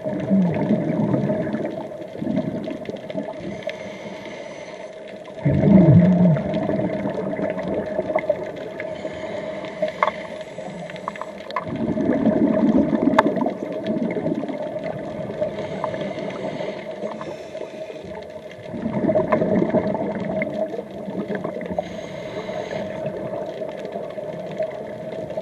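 Scuba diver's breathing through the regulator, heard underwater: exhaled bubbles rush out four times, about every six to seven seconds. A steady hum sits beneath, with a few sharp clicks near the middle.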